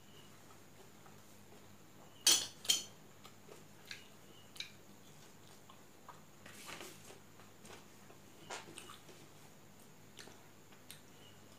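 Close-up eating sounds from hand-eating rice: scattered sharp, wet mouth clicks and smacks while chewing, the two loudest about two seconds in, and a softer squishing rustle of fingers working rice on a steel plate about seven seconds in.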